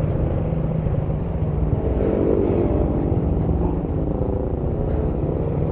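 Diesel engine of an ALS intercity bus running with a deep exhaust drone. A pitched hum strengthens about two seconds in and fades again toward the end.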